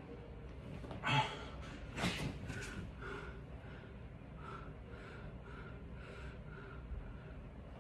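A man gasps sharply for air about a second in and again a second later, then breathes in short, quick breaths, about two a second.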